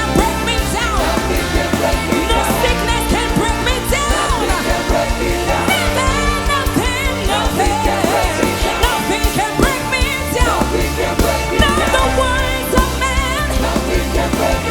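Music with singing: wavering, ornamented vocal lines over a steady bass and a regular beat.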